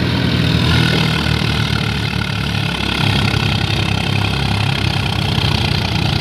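Diesel engines of two Swaraj tractors, a 963 FE and an 855 FE, running together with a steady low rumble, chained back to back for a tug-of-war pull.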